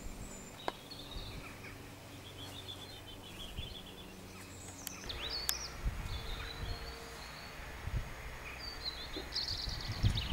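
Small songbirds chirping and twittering in short phrases, with a faint low steady drone during the first few seconds.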